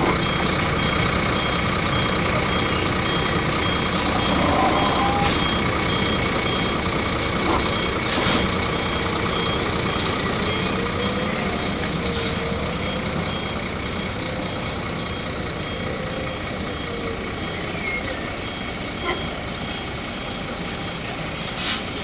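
Articulated city bus reversing slowly with its engine running and its reversing alarm sounding a steady, evenly repeating high beep. A few sharp knocks near the end.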